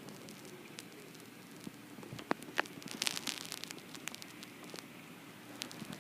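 Hurricane Sandy's wind and rain heard from a window: a steady rushing hiss, with a flurry of sharp ticks and patters about two to four seconds in.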